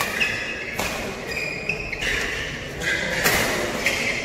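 Badminton play: shoes squeaking on the court mat, with a few sharp racket hits on the shuttlecock, the last ones near the end.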